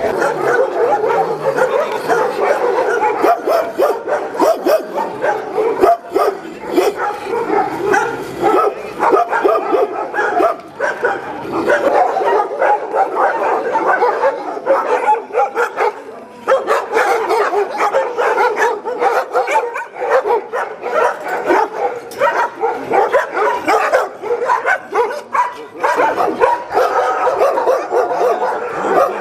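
A pack of kennelled shelter dogs barking and yipping together, many voices overlapping in a loud, unbroken chorus.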